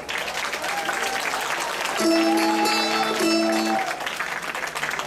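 Audience applauding steadily as a folk-dance number ends. About two seconds in, a short held tone of a few steady pitches rises over the clapping for under two seconds.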